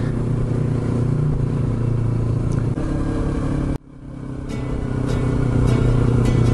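Yamaha YZF-R25's 249 cc parallel-twin engine running steadily while cruising, with road and wind noise. About four seconds in, the sound cuts out abruptly and the riding sound fades back in.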